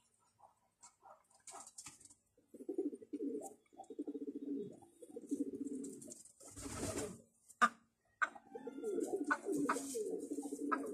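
Hen making long runs of low, pulsed crooning calls while straining to lay an egg. A short burst of noise comes about six and a half seconds in, followed by a sharp click.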